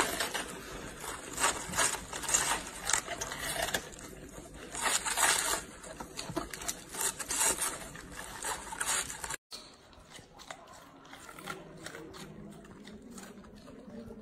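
Golden retriever puppies biting into raw cabbage heads: repeated crisp crunching and tearing of the leaves. After a sudden break about nine seconds in, the sound turns much quieter, with only sparse soft chewing.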